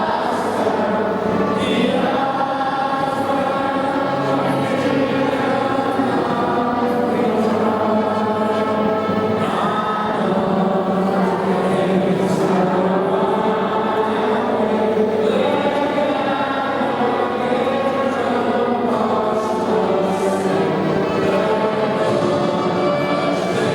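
A group of schoolchildren singing a song together, the singing carrying on without a break.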